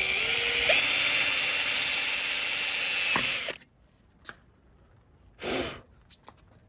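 Hand-held power tool running at high speed on the lock, its whine climbing in pitch, then cutting off suddenly about three and a half seconds in. A few light clicks and one short burst of noise follow.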